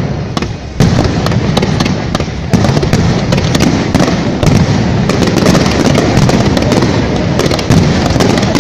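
Fireworks display in a dense barrage: continuous crackling and popping of bursting shells. Heavier bangs hit about a second in, again a second and a half later, and near the end.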